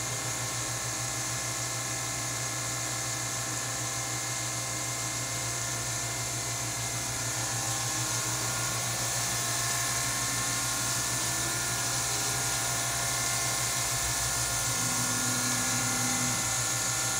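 A machine tool running steadily, with a constant whine over a high hiss, while it cuts the piston squirter pads of an LS3 aluminium engine block.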